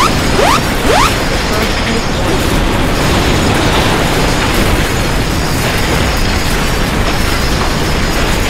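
An earthquake early-warning alarm opens with three quick rising tones in the first second. Under and after it comes a steady, loud rattling and rumbling: a furnished room and its contents clattering as a shake table reproduces the 1995 Kobe earthquake's ground motion at full strength.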